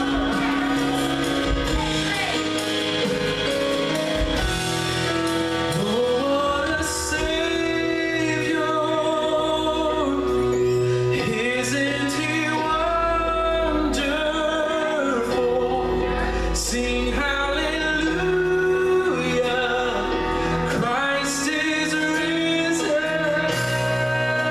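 Live contemporary worship song: a man singing as he strums an acoustic guitar, with a woman's voice singing alongside.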